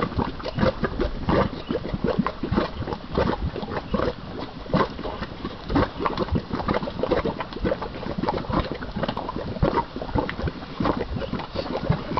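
Hot volcanic mud pot bubbling, thick mud popping in quick, irregular plops.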